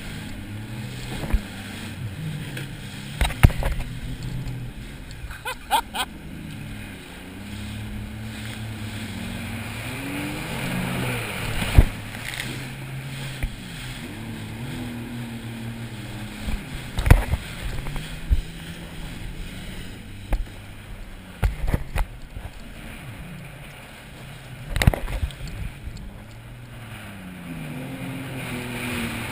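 Sea-Doo GTI personal watercraft engine revving up and down as the throttle changes while riding over waves. Several sharp smacks are heard where the hull slams down onto the water.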